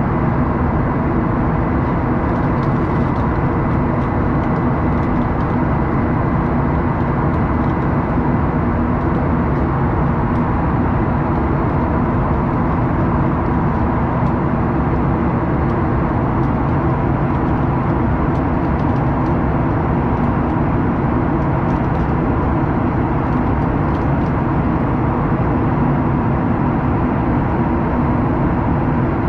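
Inside the cabin of a jet airliner in flight: the steady, even rush of the engines and airflow, with a few faint steady tones running through it.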